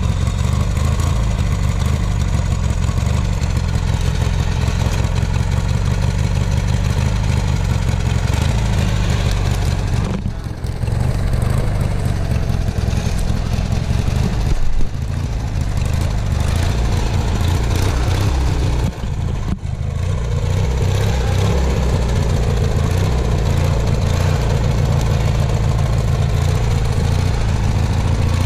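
Off-road lawn tractor's small engine running loud and steady while crawling over logs and brush, easing off briefly twice, about a third and two-thirds of the way in. A short knock near the middle.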